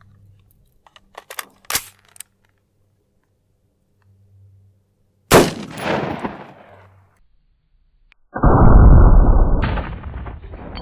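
A single shot from a 5.56mm AR-15 short-barrelled rifle with a 10.5-inch barrel, about five seconds in, sharp and with a long echoing tail. It follows a few faint clicks of handling. From about eight seconds a loud low rumble sets in and keeps going.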